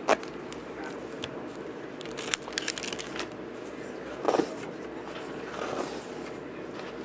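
Pages of a hardcover picture book being handled and turned: paper rustling and flapping with scattered small taps and clicks, and one louder rustle a little after four seconds.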